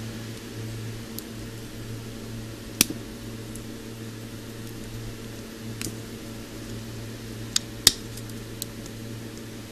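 Pliers clicking and snapping against the torn aluminium can of a burst electrolytic capacitor: a few sharp clicks, the loudest about eight seconds in, over a steady low mains hum.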